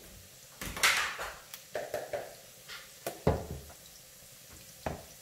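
Kitchen handling noises: a plastic tub of flour and a metal spoon knocked and clattered, with a short scraping rustle about a second in and a few sharp knocks around three and five seconds in.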